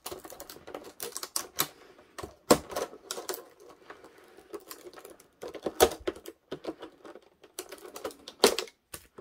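Kitchen shears snipping through the stiff edge of a clear plastic clamshell package: an irregular run of sharp clicks and crackles, with louder snaps about two and a half, six and eight and a half seconds in.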